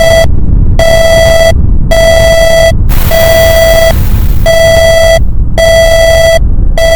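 Simulated emergency alert alarm: a harsh, buzzy electronic beep repeating about once a second, over a loud, continuous deep rumble of volcano sound effects. A hissing blast sounds about three seconds in.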